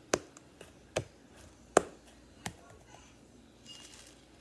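Four sharp knocks on a countertop, about one a second, with a few fainter taps between.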